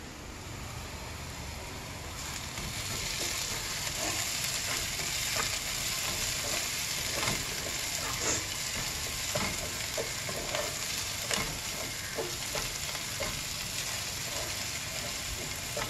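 Chopped onions and spice masala sizzling in hot oil in a pan while a spoon stirs and scrapes them, with many short scrapes and taps. The sizzle grows louder over the first few seconds.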